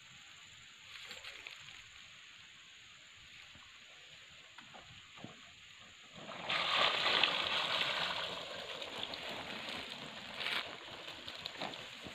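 Shallow water sloshing and splashing as a wire-mesh fish trap is stirred and dragged with a metal rod, starting suddenly about six seconds in and easing off over the next few seconds.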